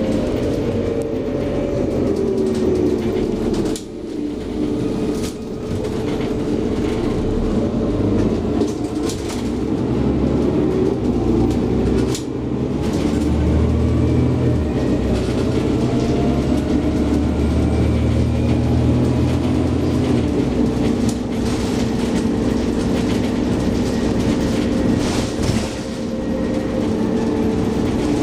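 Scania OmniCity city bus heard from inside the passenger cabin while driving: the engine and drivetrain hum with a whine that rises and falls in pitch as the bus speeds up and slows. The hum sits over road noise, with occasional knocks and rattles and a deeper low rumble for several seconds in the middle.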